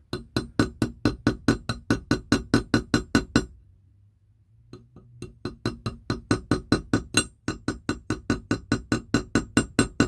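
Small jeweller's hammer tapping rapidly, metal on metal, on the end of a silver hinge pin resting on a steel bench block, spreading the pin's head into a rivet. About four light, ringing taps a second, with a pause of about a second past the three-second mark before the tapping resumes.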